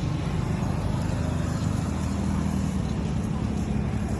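An engine running steadily, a low, even hum with no change in pitch.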